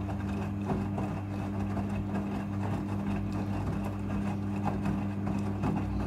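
Front-loading washing machine tumbling a wet load in the rinse stage of a rinse-and-spin cycle. A steady motor hum runs under an irregular swish and soft thuds of clothes and water dropping in the drum.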